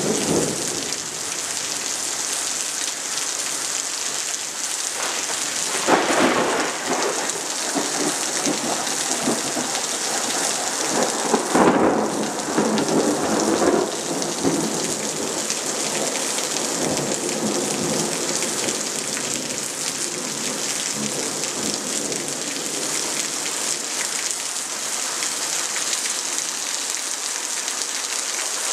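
Heavy, steady rain with thunder rumbling in two louder swells, about six seconds in and again around twelve to fourteen seconds in.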